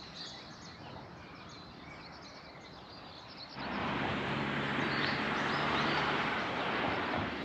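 Small birds chirping faintly over a quiet outdoor background. About three and a half seconds in, a much louder steady rushing noise sets in abruptly with a faint low hum under it.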